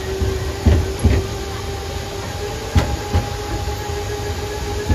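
Boardwalk tram car rolling along, its motor giving a steady whine over a low rumble. A few sharp knocks and rattles come as the car runs over the wooden boardwalk.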